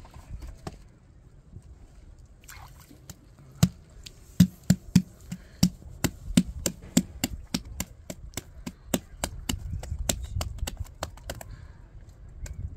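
A quick run of sharp knocks or taps, about four a second, starting a few seconds in and stopping shortly before the end, over a low background rumble.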